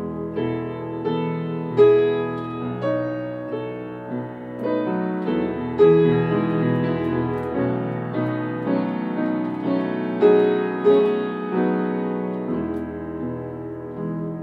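Upright piano played solo: held chords and melody notes that change about once a second and ring on, with louder accented chords about two, six and ten seconds in.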